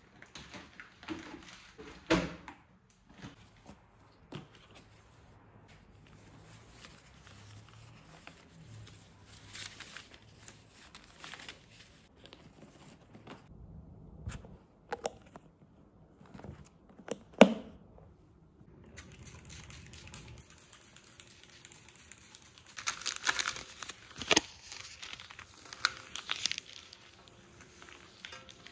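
Kitchen food-preparation handling sounds: crinkling and tearing with scattered sharp knocks, the loudest about halfway through.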